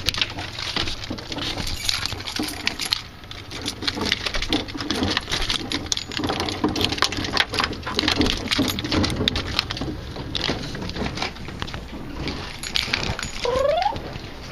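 Irregular rustling, scuffing and clicking, with a short rising house-cat meow near the end.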